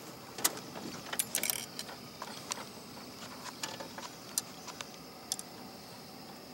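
Irregular light clicks and rattles of handling as a caught pickerel and the fishing line with its lure are held and moved, denser in the first two seconds, over a faint steady high tone.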